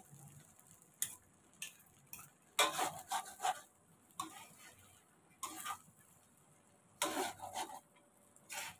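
Metal tongs scraping and clinking against a pan while tossing a batch of cooked rice noodles, in short irregular bursts of clatter.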